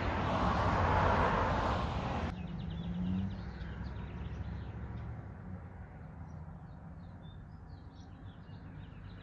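A car passing, its noise swelling and then cutting off suddenly about two seconds in. After that, birds chirp in short scattered calls over quiet outdoor background.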